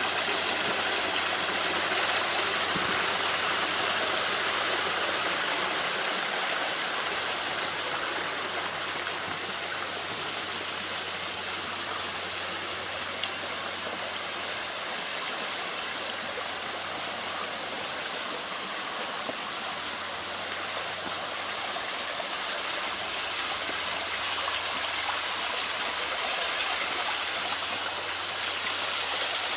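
Running water rushing steadily, like a small stream or cascade, a little louder at the start and again near the end.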